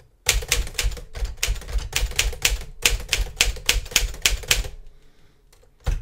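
1956 Smith-Corona Silent-Super manual typewriter being typed on at a quick pace, about five keystrokes a second, each typebar striking the platen with a sharp clack. The typing stops for about a second near the end, then starts again.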